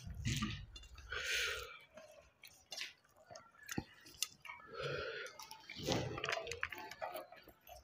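A person eating rice by hand: wet squishing as fingers knead rice and chutney on a steel plate, and chewing, with a few sharp clicks in between.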